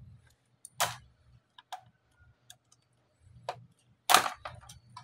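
Sharp plastic clicks and snaps as a small screwdriver pries the HP 2000 laptop's keyboard out of the palm-rest, its retaining latches popping free. A loud snap about a second in, a few light ticks, then the loudest snaps near the end.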